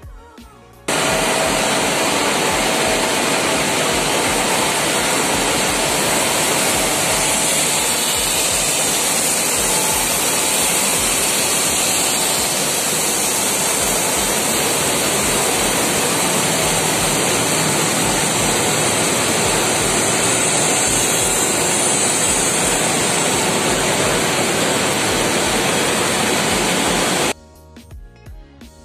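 High-speed copper-plating line for welding wire running, a loud, steady, even hiss with no distinct rhythm. It starts abruptly about a second in and cuts off near the end.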